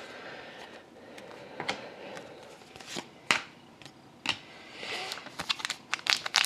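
Hockey trading cards being handled and flipped one at a time off a stack, each move giving a short soft click or slap about a second apart. About five seconds in the ticks come faster and crinklier as a sealed foil card pack is picked up.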